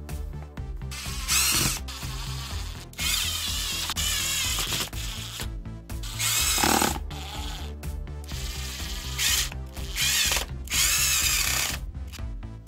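Cordless drill-driver whirring in about six short bursts as it drives screws into a plastic power-tool housing, over background music with a steady beat.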